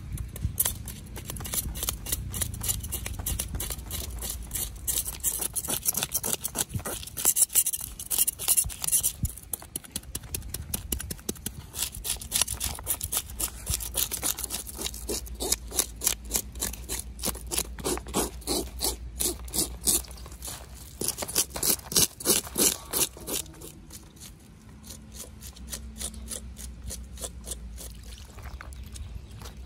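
Knife scraping the scales off a whole fish on a wooden chopping board, in runs of quick repeated strokes.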